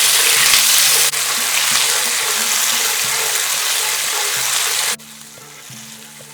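Ginger paste sizzling as it fries in hot mustard oil in a pan. The sizzle drops off sharply to a much quieter level about five seconds in.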